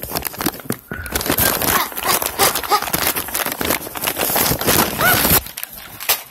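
Rustling, scraping and knocking of a phone being handled and jostled close to the face, with hair and clothing rubbing over the microphone, and a faint voice underneath. It stops abruptly about five and a half seconds in.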